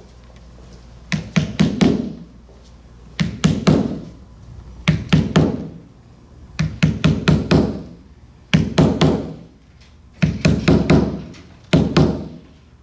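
Hammer tapping a wedge to drive the cane webbing's spline down into the groove of a chair-back frame. The strikes come in about seven short runs of four or five quick knocks, a run roughly every two seconds.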